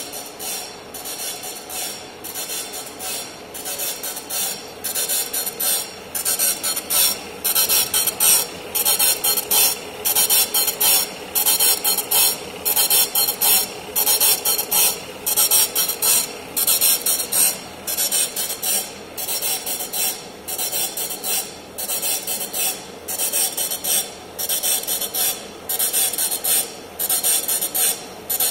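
Motor-driven polishing wheel on a tool-post attachment working the face of a steel dome valve as it turns on a horizontal boring machine, a hissing grind over the machine's running. The grind swells and fades in even pulses about one and a half times a second, and gets louder about six seconds in.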